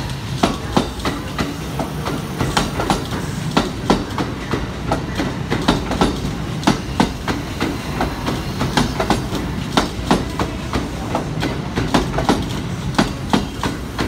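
Electric train running slowly past, a low steady rumble with many sharp clicks of its wheels clattering over rail joints and points.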